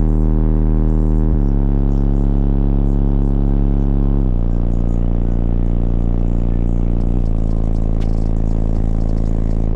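Car audio subwoofers playing loud bass: long held bass notes, each lasting about three seconds before the pitch shifts to the next.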